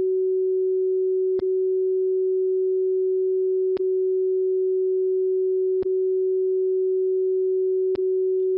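Icom IC-7300 receiving the WWV 10 MHz carrier through a 50 Hz CW filter: a steady, pure low beat tone. Four short clicks about two seconds apart come from the radio being switched between CW and CW-R. The tone keeps the same pitch across each switch, the sign that the radio's reference oscillator is on frequency.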